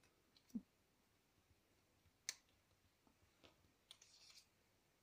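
Near silence with a few faint clicks, the sharpest about two seconds in, and a soft rustle near the end, as 160 g cardstock paper circles are slotted into one another by hand.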